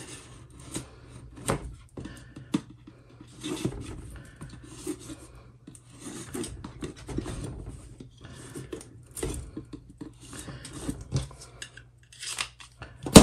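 Hands picking and scraping at a small cardboard box, working at its flaps and sealing strip: scattered light scratches, rubs and taps, and a louder sharp snap near the end.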